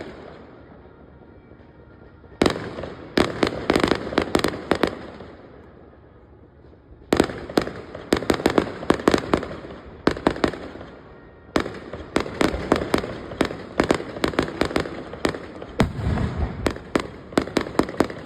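Fireworks display: volleys of rapid bangs and crackles, several a second, broken by two short lulls of about two seconds each.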